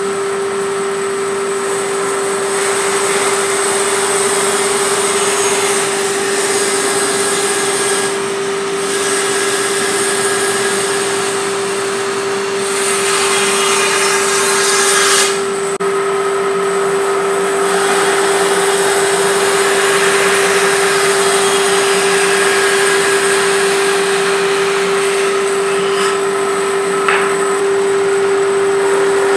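Bandsaw running and cutting through a walnut block: a steady hum under a hiss of cutting that swells and fades as the wood is fed into the blade.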